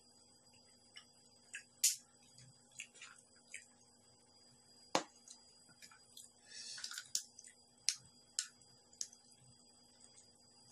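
Close-up eating sounds of a person chewing stir-fried clams and rice: scattered sharp, wet mouth smacks and clicks, one louder about halfway, with a short sucking noise a little after.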